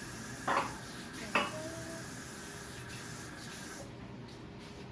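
Two short knocks about a second apart, the second followed by a brief ringing tone.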